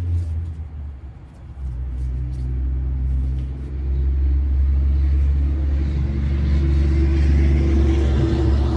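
A steady low rumble that dips briefly about a second in, with a few light clicks in the first couple of seconds.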